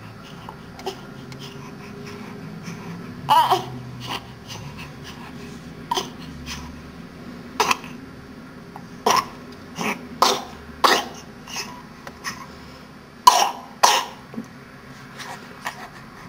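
A series of short, harsh coughs and wheezes, about a dozen at irregular intervals, the loudest pair near the end: a morning wheezing fit.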